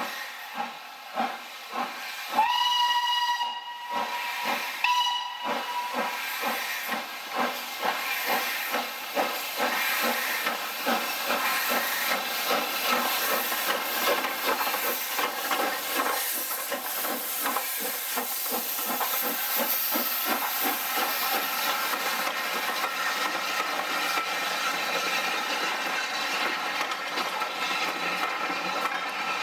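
Southern Railway King Arthur class 4-6-0 steam locomotive 30777 Sir Lamiel pulling away with a train. Its whistle sounds twice, a long blast then a shorter one, a few seconds in, while the exhaust chuffs quicken as it accelerates until the beats run together into a steady rush with steam hiss as the engine and coaches pass.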